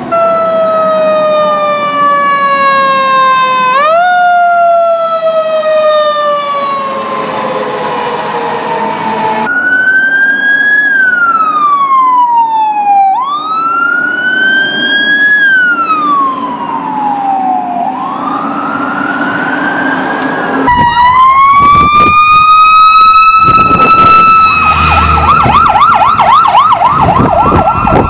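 Fire truck sirens in three successive clips: first a siren wail slowly falling, jumping back up once about four seconds in; then a wail sweeping up and down; then a siren that rises and holds a steady tone, with a fast yelp joining in near the end.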